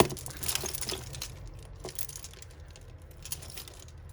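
Costume jewellery clinking and rattling as pieces are handled and dropped into a pile, with one sharp clink at the start and lighter clicks of chain and beads after it.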